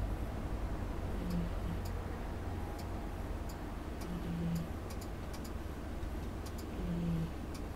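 Domestic cat snoring in deep sleep: three short, low buzzing snores about three seconds apart. Faint scattered clicks run over a steady low rumble.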